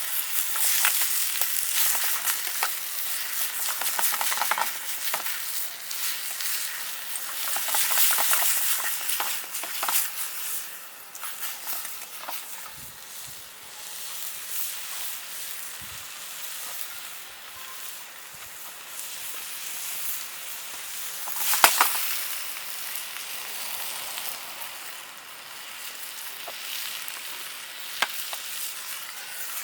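Food sizzling as it fries in a small pan, with stirring and scraping. The sizzle is louder for the first few seconds, then settles to a lower hiss, with two sharp clicks near the end.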